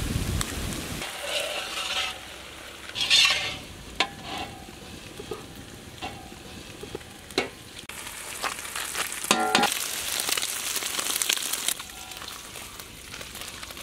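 Scrambled eggs sizzling in a large iron kadai while a metal ladle and spatula scrape and knock against the pan. A stainless steel bowl clinks and rings once a little after 9 seconds as the eggs are scooped into it.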